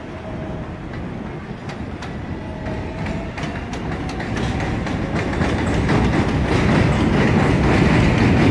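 New York City Subway 7 train approaching and pulling into an elevated station, getting steadily louder as it nears, its wheels clicking over the rail joints more and more densely.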